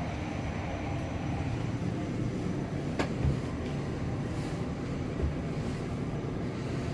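EM passenger lift car travelling down, a steady low rumble, with one sharp click about three seconds in.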